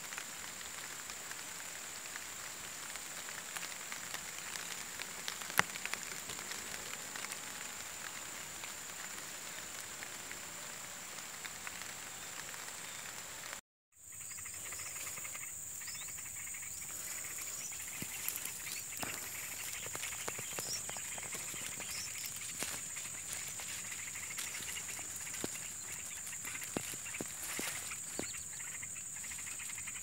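Outdoor ambience dominated by a steady, high-pitched insect chirring that does not change. It cuts out briefly about halfway through; after that there are scattered rustles and clicks of grass and leaves being parted by hand.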